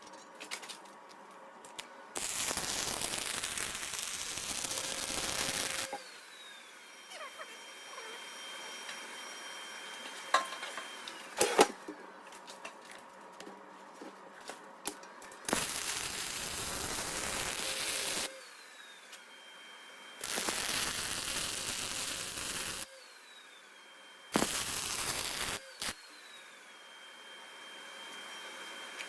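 A metalworking tool in a garage shop, run in four harsh, hissing bursts of one to four seconds each that start and stop abruptly, with a couple of sharp metal knocks in between.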